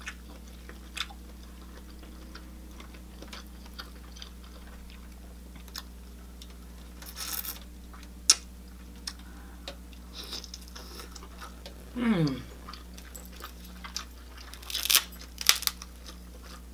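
Close-miked eating of king crab legs: wet chewing and mouth sounds with scattered sharp clicks and cracks of shell, a short rustling slurp about seven seconds in, and a brief downward-sliding 'mm' about twelve seconds in.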